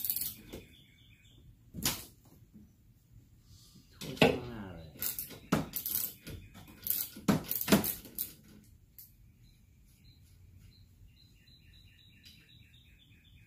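Metal wrench clinking and knocking on the windshield wiper arm nut as it is loosened: a scatter of sharp metallic clicks, most of them bunched together a few seconds in.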